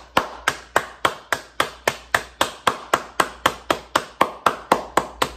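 One person clapping their hands steadily and quickly, about three to four claps a second.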